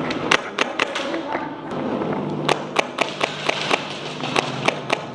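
Airsoft guns firing, a dozen or so sharp cracks at irregular spacing, single shots and short strings rather than one steady automatic burst.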